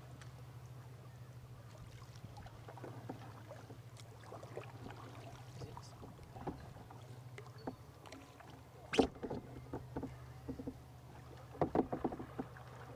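Kayak on calm water: scattered small splashes and knocks of the paddle and water against the hull, with a sharper knock about nine seconds in and a quick cluster near the end, over a steady low hum.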